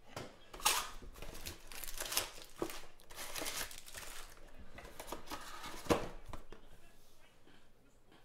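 A cardboard trading-card hobby box being torn open and its foil-wrapped card packs crinkling and rustling as they are pulled out and stacked, with two sharper cracks, one near the start and one about six seconds in.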